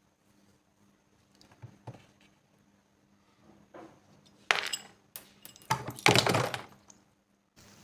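Faint ticks and taps, then two loud bursts of knocking and clatter about four and a half and six seconds in, like metal parts of a rusty spray gun being handled and knocked together.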